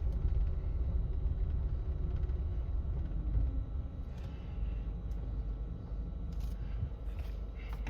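Renault car on the move with its engine running, heard as a steady low rumble from inside the cabin.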